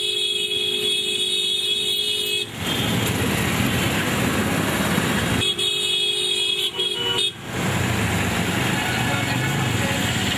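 Vehicle horn sounding in two long, steady blasts, the first lasting about two and a half seconds at the start and the second about five seconds in, over the running engines and road noise of a convoy of small trucks.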